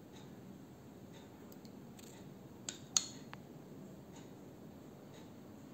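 Light clinks of a steel spoon and bowls being handled, with two sharp clinks close together about three seconds in, over faint ticking about once a second.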